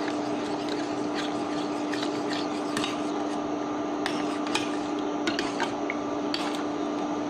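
Metal spoon stirring and scraping around a stainless steel pot of simmering tamarind sauce, with scattered light clinks against the pot, over a steady hum from the cooktop.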